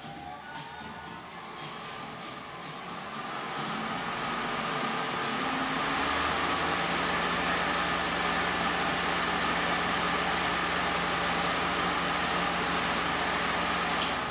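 Wabeco D6000 lathe's inverter-fed 3 kW three-phase motor and belt drive running at a steady speed: a steady hum with a high whine. A rising tone levels off about a second in as the motor reaches speed.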